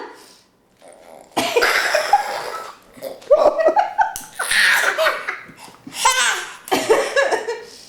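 Laughter in about five loud, pulsing bursts separated by short pauses.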